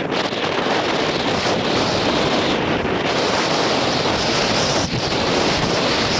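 Strong wind buffeting the microphone over surf breaking on rocks, a loud, steady rushing noise.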